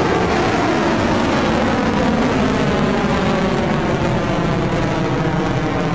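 Rocket Lab Electron rocket's nine Rutherford first-stage engines at full thrust just after liftoff: a loud, steady rumble.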